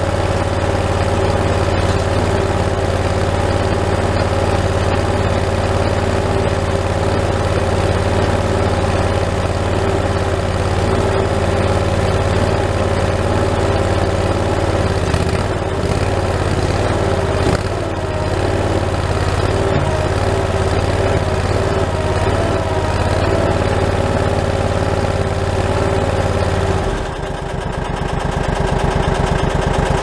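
Skid steer engine idling steadily, heard from inside its open cab. About 27 seconds in the steady hum changes to a slower pulsing throb.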